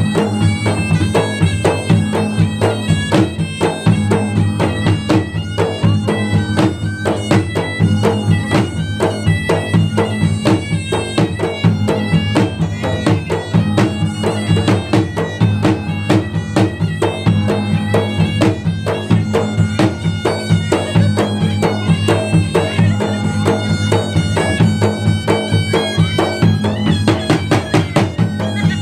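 Bugis-Makassar gendang ensemble: fast, continuous drumming on gendang barrel drums with a large hanging bronze gong struck and humming low underneath. A shrill, nasal reed wind instrument, the pui-pui, plays a sustained melody over the drums.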